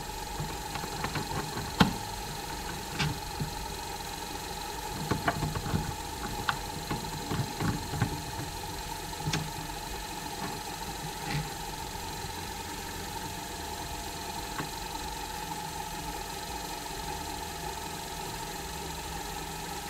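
Small benchtop cue lathe's motor running with a steady hum. Scattered metallic clicks and knocks come in the first half as a tool holder is fitted and adjusted on the lathe's tool post.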